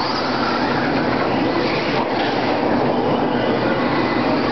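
Electric 2WD RC racing trucks running on a dirt track: a steady din of electric motors, gears and tyres on dirt.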